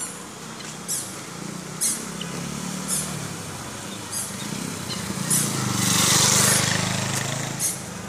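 A motor vehicle's engine hums and comes close, getting loudest about six seconds in before falling away. Short, high, sharp chirps come about once a second over it.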